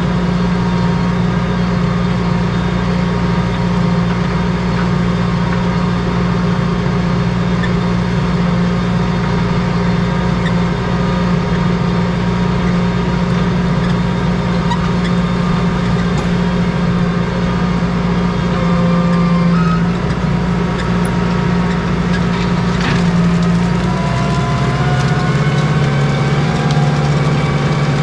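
Tractor engine running steadily, its pitch dropping a little about three-quarters of the way through as the revs come down.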